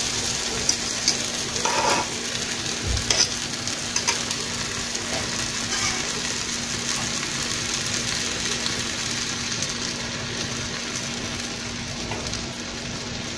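Beaten eggs frying over chopped tomato, onion and chile in a frying pan, a steady sizzle. A few light clicks of a spoon against the bowl and pan in the first few seconds.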